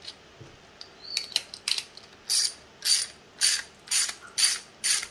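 Ratchet-like rasping strokes, about two a second, as the nut is tightened onto the bolt of a 3D-printer belt roller. The strokes are preceded by a few scattered clicks of the parts being handled.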